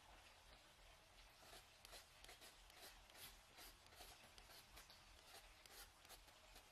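Faint rasping strokes of a julienne peeler shredding a green mango, repeated in quick succession and starting about a second and a half in.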